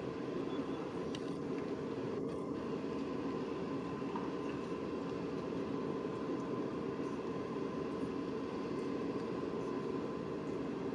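Steady drone of ship machinery: a constant hum over an even rushing noise, unchanging throughout.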